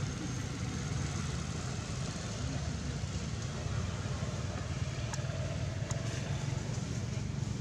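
Steady low rumbling outdoor background noise with a few faint ticks and no clear animal calls.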